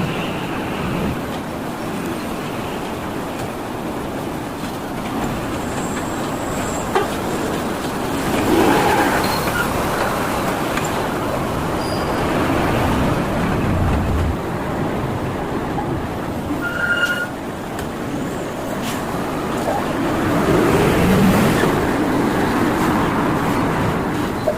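Road traffic noise from vehicles passing on a toll road exit, swelling as vehicles pass close about eight seconds in and again about twenty seconds in. A short high beep sounds about seventeen seconds in.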